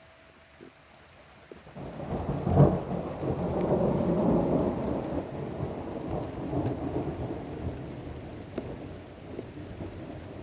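Thunder: about two seconds in, a rumble builds into one sharp crack, followed by a long low rolling rumble that slowly dies away. Rain falls steadily throughout.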